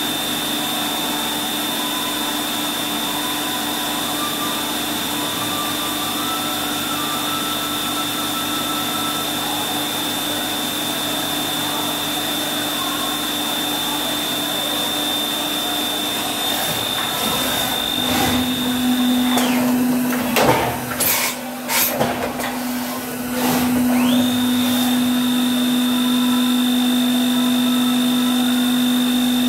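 Spindle of an LMW JV Kraft 5-axis vertical machining centre running with a steady whine. About two-thirds of the way through, the whine steps slightly lower in pitch and a few seconds of irregular rushing noise with sharp clicks break in, then the steady whine resumes.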